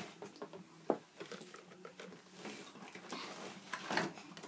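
Small plastic toy dolls being handled and set down on a table: a few light knocks and clicks, a sharp one about a second in and a louder cluster near the end.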